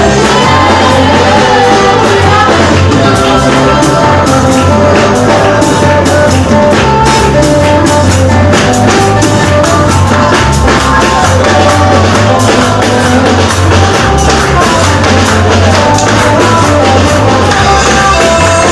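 Loud praise and worship band music: a stepping bass line, a melody and a drum kit keeping a steady beat, with singing.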